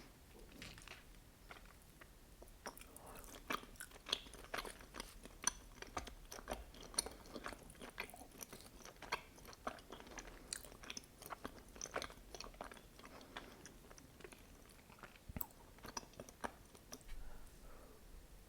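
Close-miked chewing of mochi with red bean paste: a quick run of short mouth clicks and smacks, densest and loudest through the middle.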